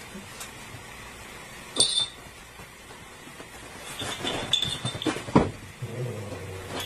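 Hard objects clinking and clattering: one sharp ringing clink about two seconds in, then a run of knocks and rattles near the end.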